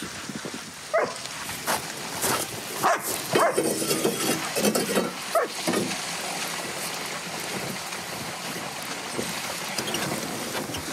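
A dog barking in a quick series of short barks, mixed with a few sharp clacks, over the first half; then only a steady rush of wind-like noise.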